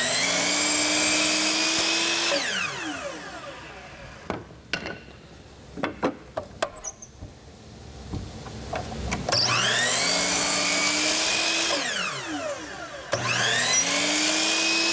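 Bosch miter saw's motor switched on three times, near the start, about 9 s in and about 13 s in, each time a whine climbing in pitch as the blade spins up and then falling as it winds down, while the blade makes a 45-degree miter cut in wood. A few sharp knocks in the lull between the runs.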